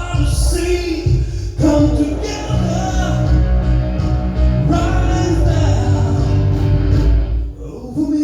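Rock music with singing, the band playing steadily.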